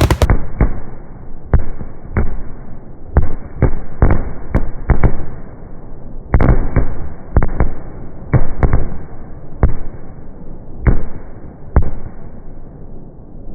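Fireworks finale: aerial shells bursting in quick, irregular succession, close to twenty loud bangs with a rumble between them. The bangs thin out near the end.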